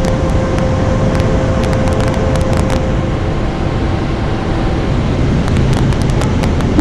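Steady low rumble of sea surf and wind, with faint held tones of background music over it.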